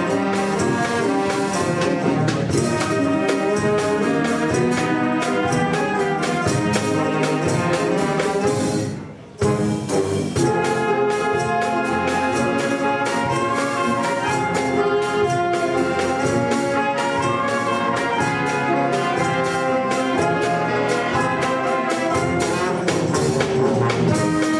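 Concert wind band playing live, flutes and clarinets among the ensemble, with a short break about nine seconds in before the music resumes.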